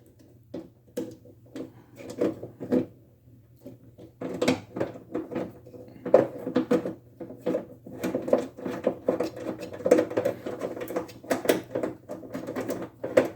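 Quick clusters of small metallic clicks and rattles as a bolt held in a socket is fitted through the trunk latch and threaded in partway. The clicking is sparse at first and densest in the second half.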